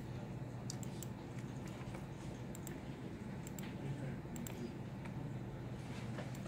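Computer mouse clicks, several in quick pairs, scattered over a steady low hum.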